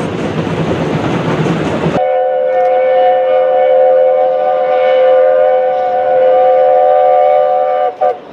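Passenger carriages rolling past close by, a loud even rumble of wheels on rail. It cuts to the class 19D steam locomotive's chime whistle: one long blast of several tones sounded together, held about six seconds, breaking off near the end into a short toot.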